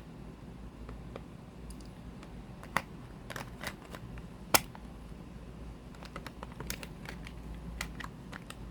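Small plastic clicks and taps from handling a car vent-clip air freshener and its packaging, scattered and irregular, with a sharper click about four and a half seconds in, over a low steady hum.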